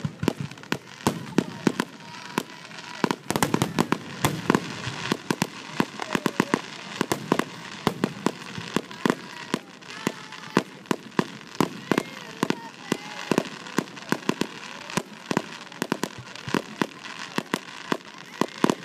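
Fireworks display going off in rapid, irregular succession: sharp bangs and pops of bursting aerial shells, several a second.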